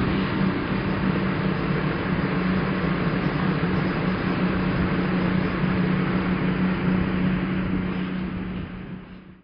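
Boat engine running steadily under way: a constant low hum under a broad rushing noise, fading out near the end.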